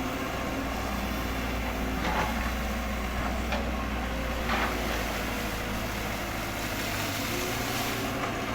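A steady low motor hum with a few faint clicks.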